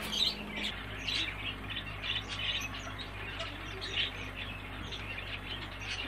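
Caged pet birds chirping and squawking, many short calls scattered throughout, over a steady low hum.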